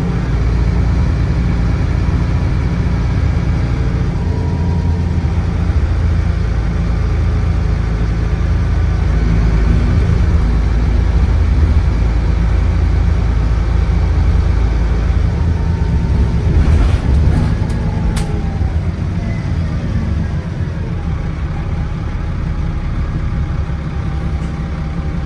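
Dennis Trident double-decker bus's diesel engine running hard under load, heard from inside the saloon, with a higher whine that rises and falls above it. About two-thirds of the way through the engine eases off and the bus slows, with a few sharp clicks around then.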